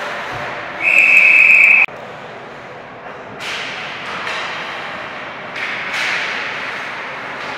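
Hockey referee's whistle blown once, a shrill steady tone lasting about a second that cuts off sharply, over the rink's background noise. Two sharp cracks from sticks and puck follow a few seconds later.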